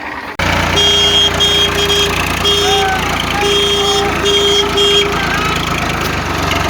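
An engine running steadily, with an electronic tone tune of short and long beeps playing over it for about four seconds. Both start abruptly just after the start.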